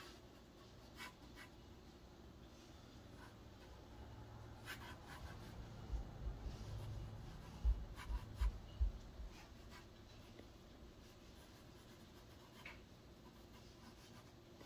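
Faint scratching of a drawing tool on paper, with a cluster of dull thumps between about six and nine seconds in.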